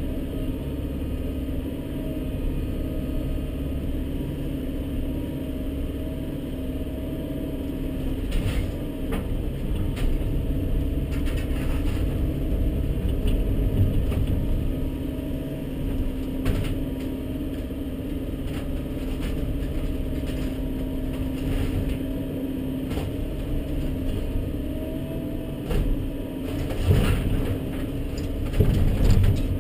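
Volvo EC140BL excavator's engine running steadily, heard from inside the cab, with wood cracking and clattering several times as barn boards and timbers break and fall; the loudest crashes come near the end.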